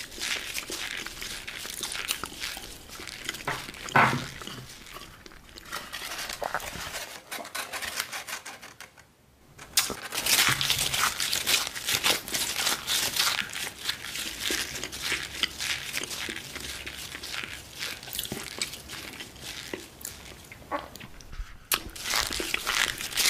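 Greaseproof paper and a cardboard pizza box crinkling and crackling as they are handled, with a sharp louder hit about four seconds in and a brief near-silent gap around nine seconds in.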